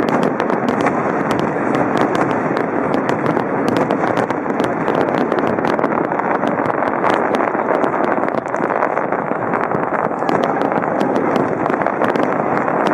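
Dense fireworks barrage: a continuous rumble of overlapping bangs with rapid crackling pops throughout, never pausing.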